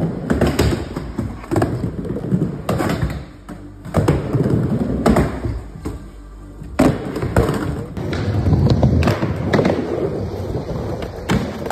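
Skateboard wheels rolling on the park floor and ramps, with repeated sharp clacks and thuds of boards popping and landing, over background music.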